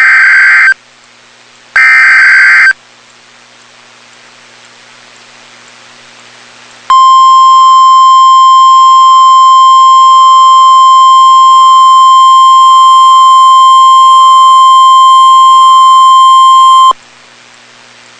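Emergency Alert System tornado warning signal: the last two bursts of the digital SAME header, each about a second long and a second apart. After about four seconds of hiss comes a single steady alert tone, around 1 kHz, held for about ten seconds.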